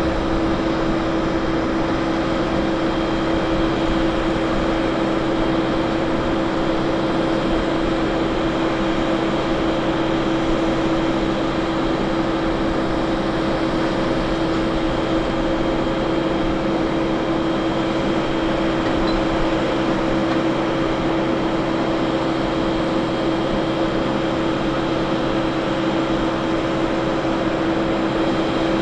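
Airbus A321's auxiliary power unit running steadily while the airliner stands parked: an even whine with a broad rushing noise under it.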